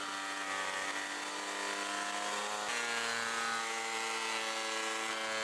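Planer-thicknesser running, planing a rough-sawn oak board: a steady motor whine whose pitch drops abruptly a little past halfway through.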